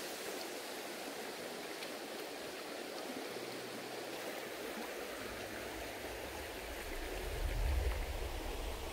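Shallow stream running over a gravel bed: a steady rush of water, with a low rumble building near the end.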